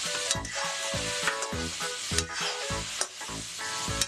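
Onions, tomatoes and cashews sizzling in hot oil in a metal kadai while a metal ladle stirs them. A background music track with a steady beat of about three thumps a second runs underneath.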